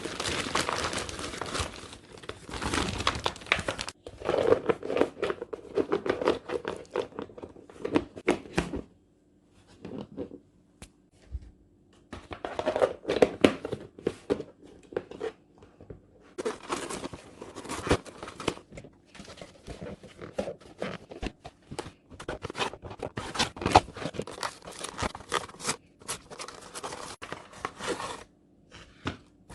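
Plastic food packaging being handled, crinkling and tearing in irregular bursts, with short pauses.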